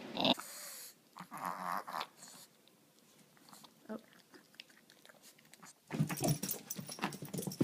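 A dog making short vocal sounds, then quiet, then a run of quick clattering and scuffling noises about six seconds in.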